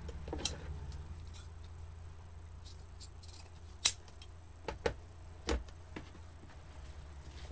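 Scissors and ribbon being handled on a craft table: scattered small clicks and clinks, with the loudest sharp snip of the scissors about four seconds in. A steady low hum runs underneath.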